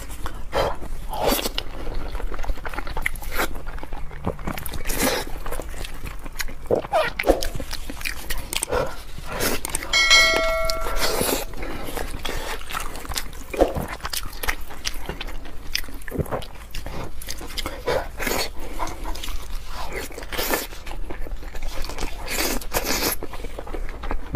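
Close-miked eating of braised pork knuckle: the soft, gelatinous skin and meat are pulled apart by gloved hands and chewed, with many short, wet mouth clicks. A short ringing chime sounds about ten seconds in.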